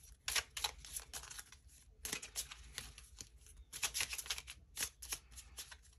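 Tarot cards being shuffled in the hands: quiet, quick papery flicks of card stock coming in irregular clusters.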